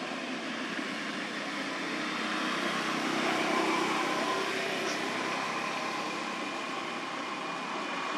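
Distant engine noise: a steady rush with a faint hum in it, swelling a few seconds in and then easing off.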